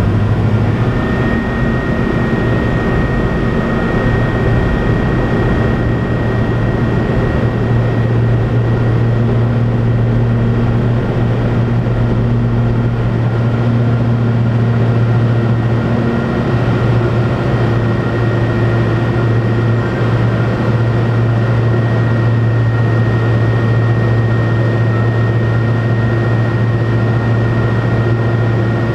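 Robin DR400 light aircraft's piston engine and propeller running at full takeoff power, heard inside the cockpit as a loud, steady drone with a thin high tone on top. A deeper rumble underneath drops away about halfway through.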